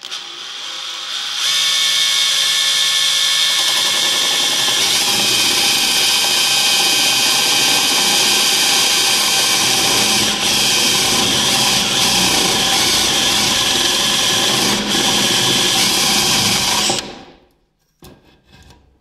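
Makita power drill turning a spade bit through a wooden board: the motor runs up over the first second or so, then holds a steady whine as the bit bores, and stops about seventeen seconds in, winding down. A couple of brief knocks follow near the end.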